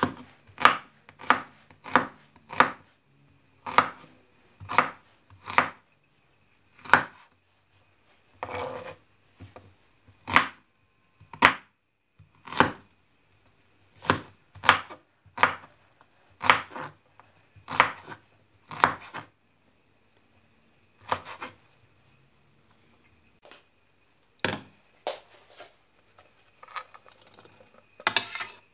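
Knife chopping an onion on a wooden cutting board: sharp single strikes at an uneven pace, roughly one a second. Near the end the blade scrapes across the board, pushing the chopped onion off into a bowl.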